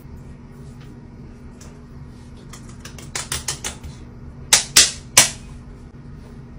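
Hands patting and slapping bare skin on a face during a skincare routine: a quick run of light pats, then three loud, sharp slaps in under a second, over a steady low hum.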